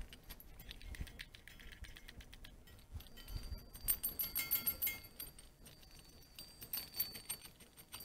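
Steel bolts, nuts and washers clinking and jingling together as they are handled, in clusters of light metallic ticks. The clicks are busiest around four to five seconds in and again near seven seconds.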